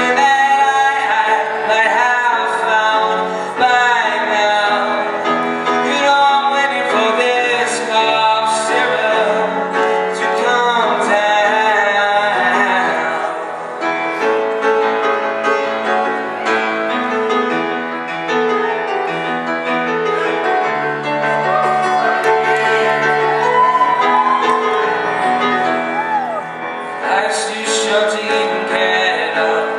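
A young male voice singing with piano accompaniment, sustained chords under a sung melody that drops out for stretches, leaving the piano alone.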